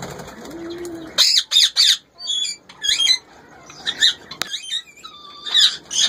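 Indian ringneck parakeets giving a run of short, high-pitched squawks in several bursts, starting about a second in, alarmed as the nest pot holding their chicks is disturbed. A single sharp click about two-thirds of the way through.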